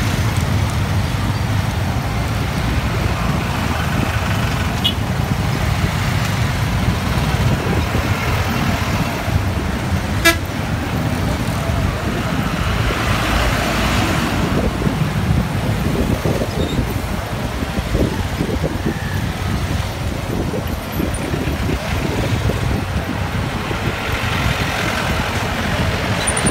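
Road traffic heard from a moving motorcycle: a steady low rumble of engines and road noise as trucks and other vehicles pass close by, with a sharp click about ten seconds in.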